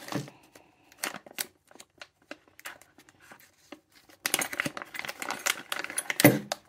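Clear plastic zip-top bags crinkling and rustling as they are handled and opened, sparse crackles at first, busier from about four seconds in, with one louder bump near the end.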